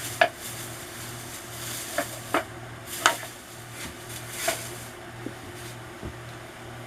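Handling noise from small objects being picked up and set down: about five short, sharp knocks and clicks, the loudest near the start and around three seconds in, over a faint steady hum.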